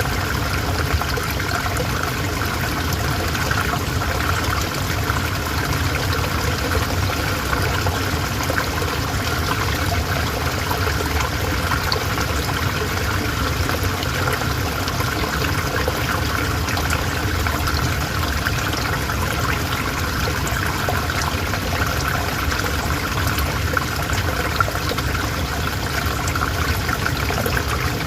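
River water flowing and trickling over rocks, a steady even rush without letup.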